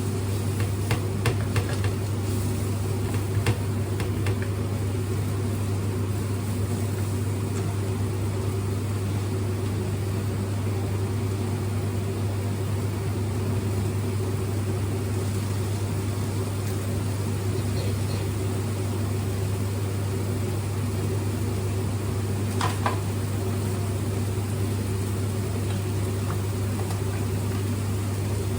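Steady electric hum of a running kitchen appliance, with a few light clicks in the first few seconds and a short knock about 23 seconds in.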